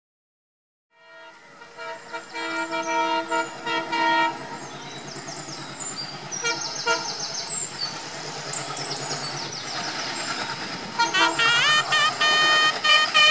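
Passenger train horn sounding a multi-tone chord as it fades in, over the steady rumble of the passing train. Music begins near the end.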